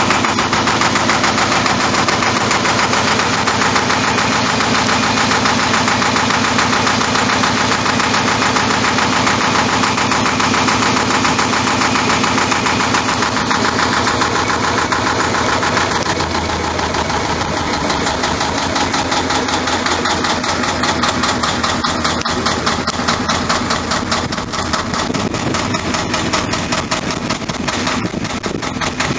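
Lister HA2 two-cylinder air-cooled diesel engine running steadily, a rapid, even clatter of firing strokes, heard close up in the engine hole. The tone shifts slightly about halfway through as the listening point moves around the engine.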